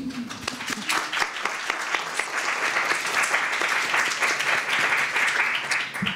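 Audience applauding, building up over the first second or two and stopping abruptly near the end.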